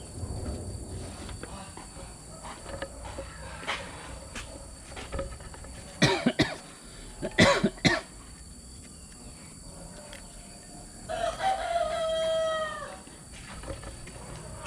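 A rooster crowing once, a call of about two seconds that drops in pitch at the end, near the end. Before it, two short clusters of loud, sharp sounds.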